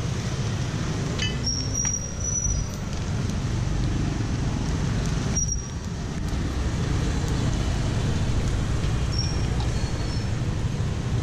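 Street traffic: a steady rumble of road vehicles passing, with a few brief high squeaks.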